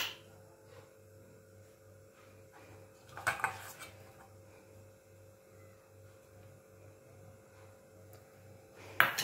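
A metal spoon briefly clinking and scraping against steel bowls while batter is spooned into a mould, once about three seconds in and again at the end, over a faint steady hum.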